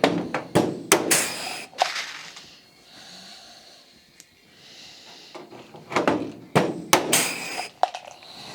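Pop rivets being set in aluminium sheet with a rivet gun: two clusters of sharp snaps and knocks, each followed by a short hiss, with a quieter pause between them.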